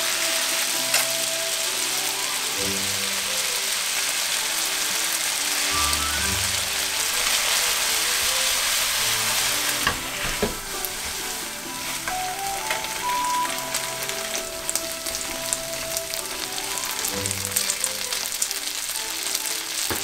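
Spaghetti, onion, green pepper and sausage slices sizzling in oil in a frying pan as they are stir-fried with chopsticks. The sizzle eases a little about halfway through, when the noodles are sauced and tossed.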